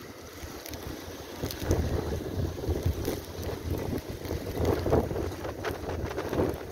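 Strong wind blowing across the microphone in repeated gusts, a low rumbling buffet that swells and eases every second or so.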